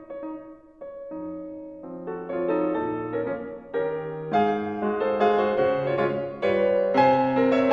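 Background instrumental music of held, stacked notes, growing louder and fuller about four seconds in.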